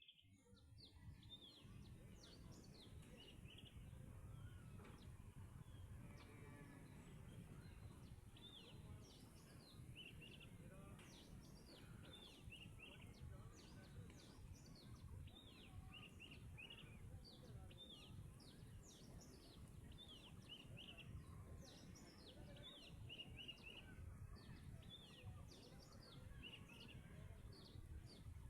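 Faint birdsong: small birds giving many short, high chirps, often falling in pitch, over a low steady rumble.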